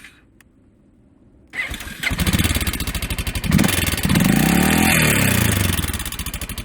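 Honda XR650L single-cylinder engine: it goes quiet, starts up again about a second and a half in, is revved up and back down once, then settles into a steady pulsing idle. Its ticking is taken by the owner for a loose valve seat, typically caused by overheating from a lean mixture.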